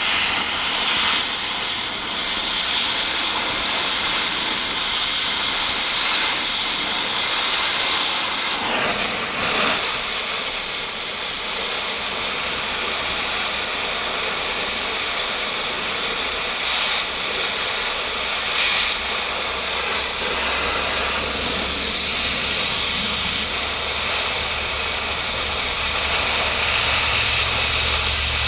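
Cutting torch hissing steadily as it cuts a welded steel plate off a tractor lift arm.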